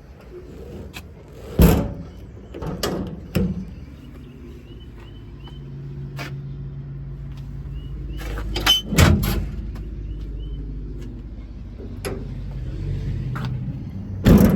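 A series of sharp metal clanks and thumps from doors on a work truck being opened and shut, the loudest about nine seconds in and again near the end, over a low steady rumble.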